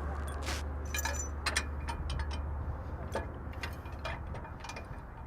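Light metal clinks and taps from three-point hitch hardware being handled, scattered irregularly, over the steady low hum of a tractor engine idling.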